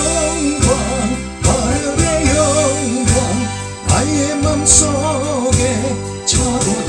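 A Korean gospel hymn sung by a solo voice over a backing track with a steady, pulsing bass beat.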